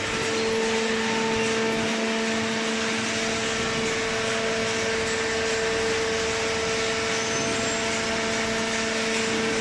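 Corrugated cardboard baler running steadily: a constant machine hum with a strong low drone over an even rushing noise.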